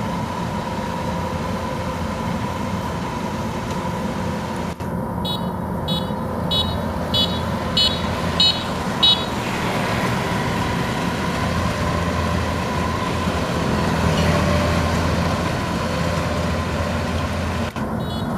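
Kubota DC93 combine harvester running steadily under load with a steady whine. After a sudden break about five seconds in, a warning beeper sounds about seven short beeps, roughly one every 0.6 s, and the beeping starts again after another break near the end.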